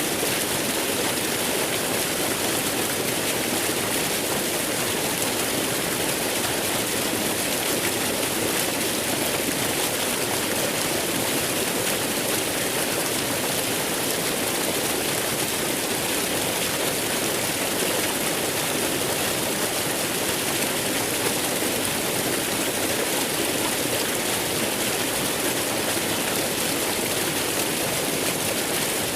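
Waterfall: water falling and rushing in a steady, unbroken roar of splashing.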